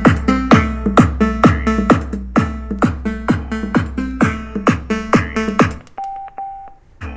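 Bass-boosted electronic dance music with a heavy kick drum about twice a second, played through a small Tronsmart Element Groove Bluetooth speaker. Near the end the music cuts out, two short beeps sound, and the music starts again.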